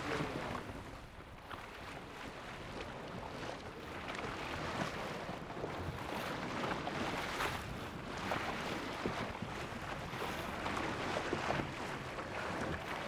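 Wind buffeting the microphone and water splashing against a wooden rowing boat on choppy water, with irregular short splashes throughout.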